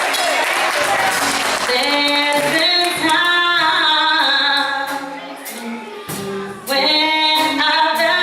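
Gospel choir singing with instrumental accompaniment, holding sustained notes. It drops quieter for a moment a little past halfway.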